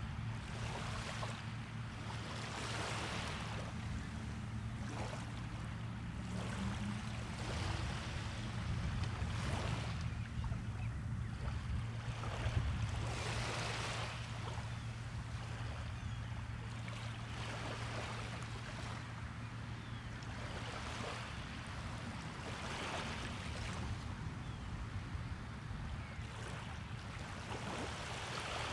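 Small waves washing onto the beach, a wash every two to three seconds, over a steady low rumble.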